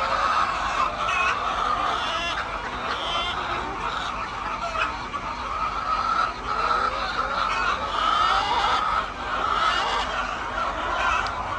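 A large flock of hens clucking and calling over one another in a continuous, busy chorus.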